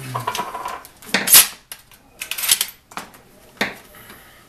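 Steel parts of an Ithaca Mag-10 10-gauge semi-automatic shotgun clanking and sliding against each other as the barrel is fitted to the receiver and the action is worked. A loud metallic clank comes a little over a second in, a scraping slide around two and a half seconds, and a sharp click shortly before the end.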